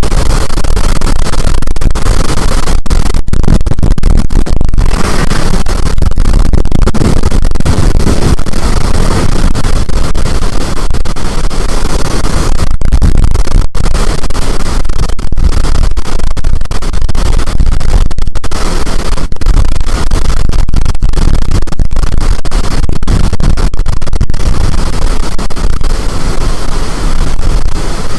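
Storm wind blasting the microphone: a loud, distorted, continuous rush of noise, broken by many brief dropouts.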